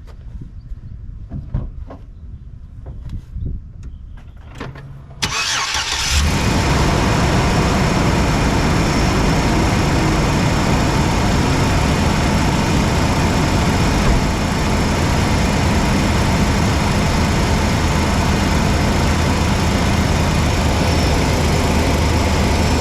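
A few light knocks, then about five seconds in the Chevy Express van's 4.3-litre V6 cranks, catches and settles into a steady idle. This is the first run after the oil filter housing seal was replaced, a leak test.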